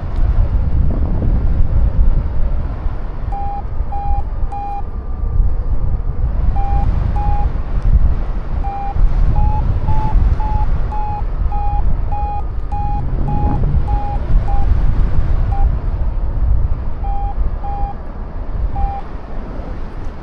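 Flight variometer beeping in short, evenly pitched tones, a brief run of three, then a longer run that rises slightly in pitch midway and drops back, signalling the glider climbing in lift. Heavy wind buffets the microphone throughout.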